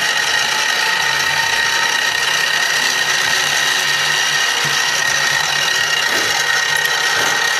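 Small milling machine running steadily with a high, even whine, its bit cutting into the wooden handle scale on a bayonet's steel tang.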